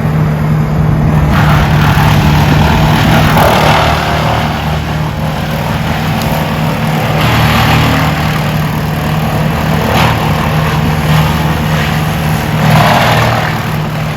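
Large 440-horsepower wood chipper running steadily, with rough grinding swells every few seconds as trees and branches are fed through and chipped.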